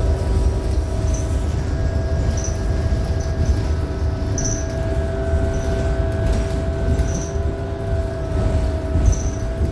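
Interior of a 2018 New Flyer XDE60 hybrid articulated bus under way: low rumble, with a steady two-tone whine from the Allison hybrid drive. Short high squeaks come every second or two.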